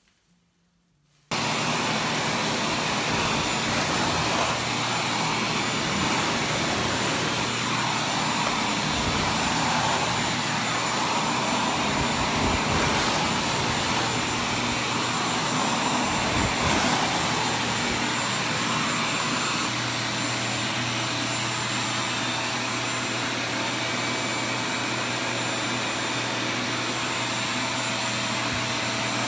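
Shop vacuum starts abruptly about a second in and runs steadily with a constant hum and high whine. Its nozzle carries a scraper that is being drawn across a textured popcorn ceiling, sucking up the scraped-off texture.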